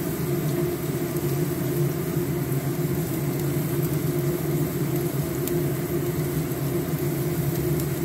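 Steady low machine hum made of several steady low tones, with an even hiss over it, unchanging throughout.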